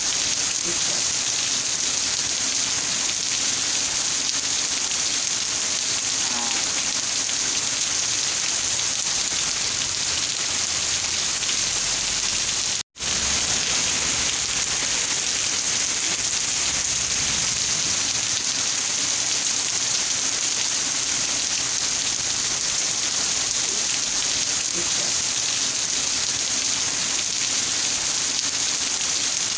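Steady, heavy rain falling, an even hiss of drops on a surface. It cuts out for an instant about thirteen seconds in.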